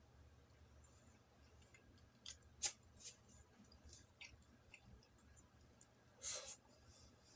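Quiet eating sounds of a man eating with wooden chopsticks: a few small sharp clicks of chopsticks and mouth a couple of seconds in, and a louder mouth noise as he takes a bite near the end.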